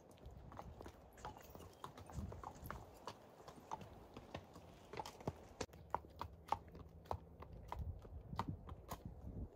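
Friesian horse's hooves clip-clopping on a tarmac lane as it is led past at a walk, an uneven run of sharp clicks.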